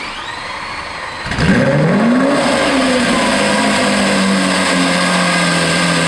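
Car engine starting: the revs climb sharply about a second and a half in, then drop back and settle into a steady idle.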